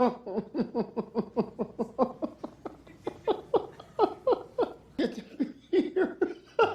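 A person laughing hard in quick repeated bursts, about four to five a second, each dropping in pitch, with short breaks for breath.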